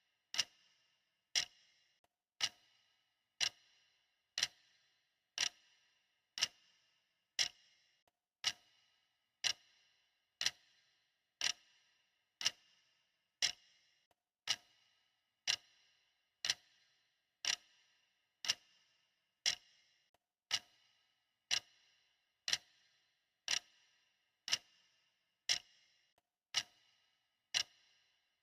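Clock ticking steadily, one sharp tick about every second, each with a brief ringing tail.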